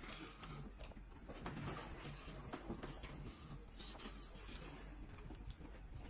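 Faint, irregular crackles and rustles of fingers peeling hot boiled eggs, bits of shell breaking off, over a low steady hum.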